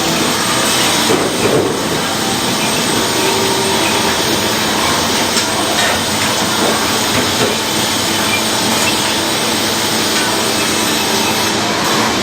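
Sawmill running, its saw cutting a log into dimensional lumber: a loud, steady mechanical noise.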